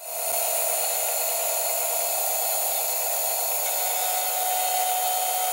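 Milling machine end mill cutting into an aluminium motorcycle crankcase: a steady, high machining noise with a held tone from the cut, starting suddenly.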